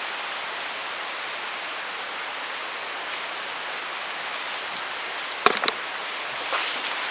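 Steady hiss with two sharp knocks a fraction of a second apart about five and a half seconds in, followed by faint rustling near the end.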